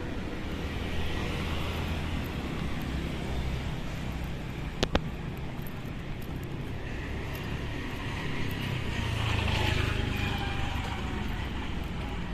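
Steady street traffic noise, with a motor vehicle's engine growing louder and fading again around 9 to 10 seconds in. A sharp click about 5 seconds in.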